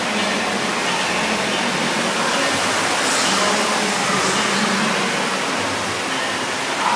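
Steady rush of running water in an indoor water park, the spray and splash of its fountains and water features blending into one even noise.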